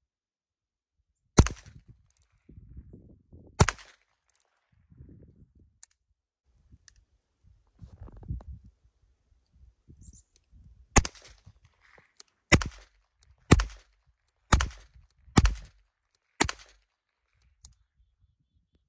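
Heritage Rough Rider .22 LR single-action revolver firing. There are two sharp shots about two seconds apart, then a long pause, then six shots about a second apart near the end.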